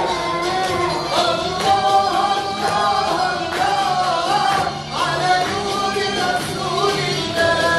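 A solo voice singing a devotional song (inshad) into a microphone over a sound system, with musical accompaniment and listeners clapping in time.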